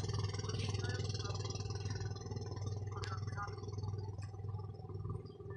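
A steady low engine-like hum, with a single sharp click about three seconds in.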